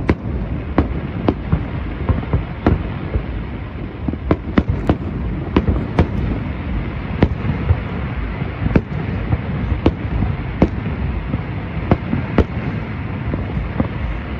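Aerial fireworks exploding, with sharp bangs about one or two a second over a constant low rumble and crackle of bursting shells, recorded on a phone microphone.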